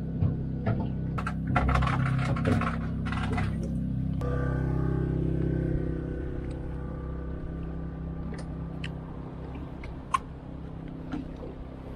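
Boat's generator running with a steady low hum. Rattling and knocks over the first few seconds, and a few sharp clicks later.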